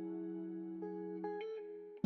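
Background music: held, sustained guitar chords, with new notes joining about a second in and the sound fading near the end.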